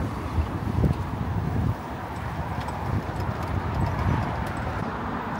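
Footsteps of a person walking on pavement, low thuds about two a second, heaviest in the first couple of seconds, over steady city street noise.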